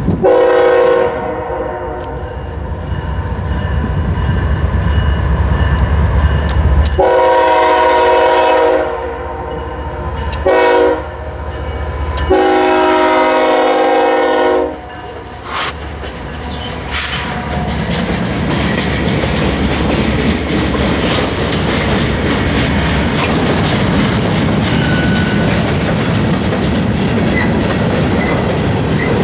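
Two CSX GE Evolution Series (GEVO) diesel locomotives passing with a freight train, their air horn sounding a chord in two long blasts, a short one and a long one (the grade-crossing signal), over the low rumble of the diesel engines. From about halfway through, the freight cars roll by with a steady clickety-clack of wheels on the rails.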